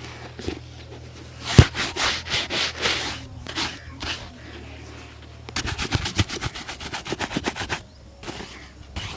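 A leather shoe being rubbed and buffed by hand for a shine. A few slower strokes come about a second and a half in, then a fast run of short, rapid strokes from about five and a half seconds to near eight seconds.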